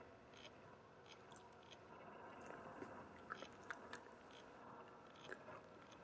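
European badger eating chips: faint, irregular wet chewing and crunching clicks, a few sharper ones in the middle and one near the end.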